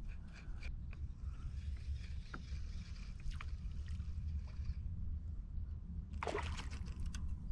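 Water lapping and gurgling against a kayak hull over a steady low rumble, with a few small knocks and a brief louder rush of noise about six seconds in.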